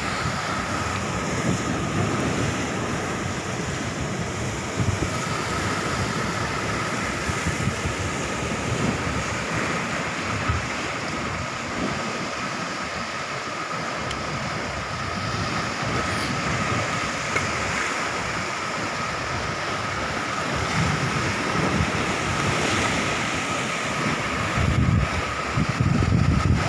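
Sea surf washing steadily against the shore, with wind gusting on the microphone as low rumbles near the start and again near the end.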